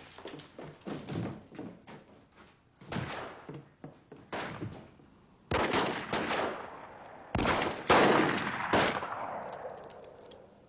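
Gunfire in a shootout: scattered shots at first, then louder, closer-spaced shots after about five seconds, each with an echoing tail.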